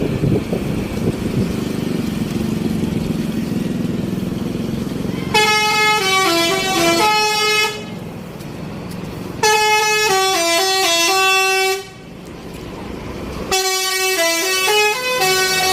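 Vehicle engine and traffic noise for about five seconds, then a bus's 'telolet' multi-tone musical horn (Basuri type) plays a stepping, quacking 'wek wek wek' tune three times, each phrase about two and a half seconds long.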